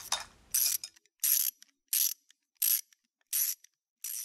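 Mechanical ratcheting sound effect: the tail of a quick run of clicks, then six short ratcheting strokes evenly spaced about two-thirds of a second apart.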